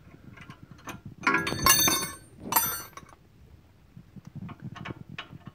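Steel hand tools clinking and ringing against each other in two bursts, about a second in and again about two and a half seconds in, followed by a few light clicks.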